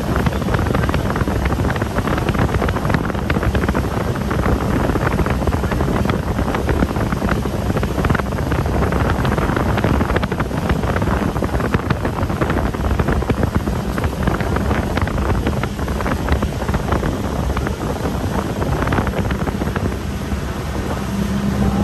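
Wind buffeting the microphone, with a steady low engine drone underneath.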